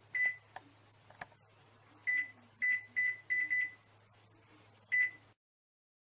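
Microwave oven keypad beeping as buttons are pressed to set the cooking time: seven short beeps at one pitch, unevenly spaced, several in quick succession, with a few faint clicks between. The sound cuts off suddenly near the end.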